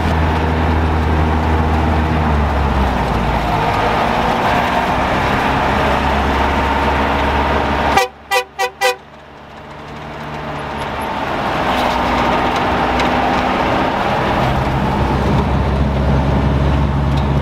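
Bus engine running steadily, heard from inside the cabin. About eight seconds in the engine sound drops away abruptly and four quick horn toots sound, then the engine noise swells back up over a few seconds.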